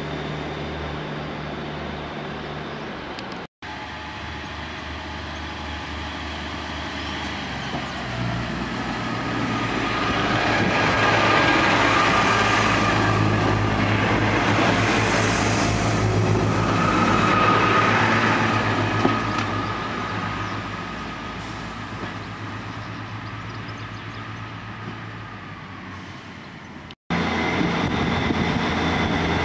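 Diesel multiple-unit passenger trains at station platforms. An engine hum with a steady high whine builds as a train runs close past, is loudest in the middle, then fades. There are sharp cuts to other trains near the start and near the end.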